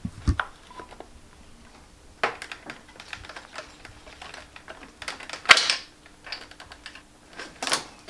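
Irregular clicks, taps and scraping of a motorcycle clutch cable and its outer housing being worked free of its mountings and pulled out by hand. The loudest scrape comes about five and a half seconds in.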